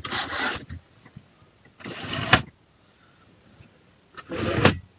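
Camper-trailer window blinds being pushed open three times, each a short sliding swish, the later two ending in a sharp click.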